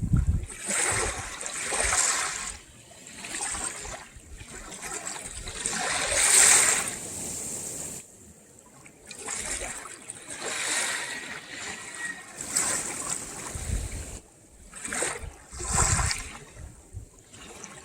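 Small waves lapping and splashing at the shoreline, in repeated swells of rushing water that rise and fade every second or two.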